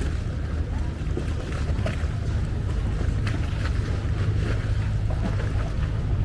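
A boat's engine running with a steady low rumble, with scattered light clicks and knocks over it.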